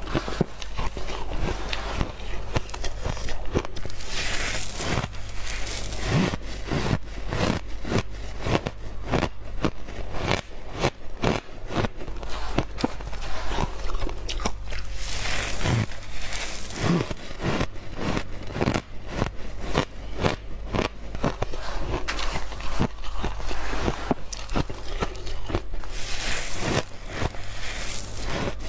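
Coarse refrozen shaved ice crunching and crackling as hands dig and squeeze through it and it is bitten, in dense irregular crackles throughout. Three times, a few seconds in, about halfway and near the end, a hissing rush of ice granules pouring from the hands swells up. A steady low hum runs underneath.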